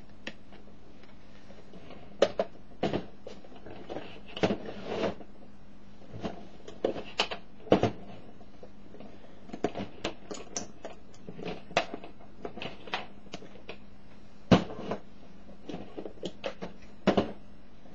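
Plastic boxes and cable plugs being handled on a table: irregular clicks, knocks and light rattles as network cables are unplugged from the buzzer boxes and the boxes are pushed together, with a few louder knocks.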